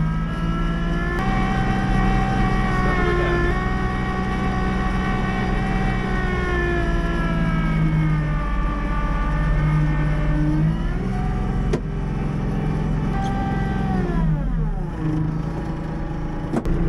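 Kubota LX2610 compact tractor's three-cylinder diesel engine running steadily. Its note dips briefly and comes back up near the end.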